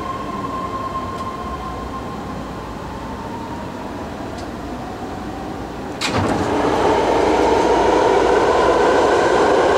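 BART train heard from inside a passenger car: steady running noise with a motor whine that slowly falls in pitch, then, about six seconds in, a sudden jump to a louder rushing noise as the whine starts to rise.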